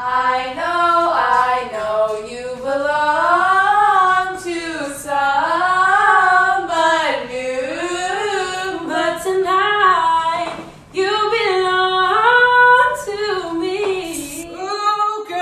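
Young women singing a song without accompaniment, the melody rising and falling, with a brief break about eleven seconds in.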